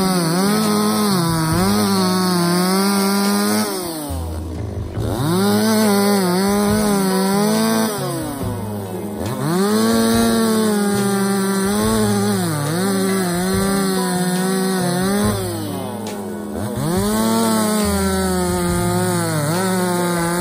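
Stihl MS260 two-stroke chainsaw bucking logs: the engine runs at full throttle, its pitch sagging and wavering as the chain cuts through the wood. Three times, at about four, eight and a half and sixteen seconds in, the engine drops back toward idle between cuts and then revs up again for the next one.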